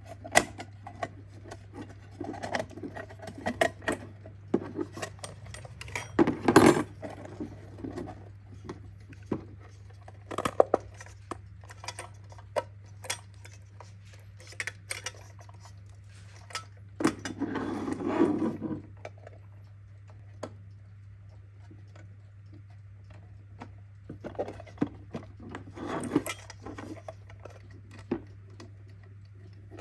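Handling of a mechanical alarm clock and its small metal parts: irregular clicks and light knocks, with two longer rubbing scrapes, one about six seconds in and one around eighteen seconds in.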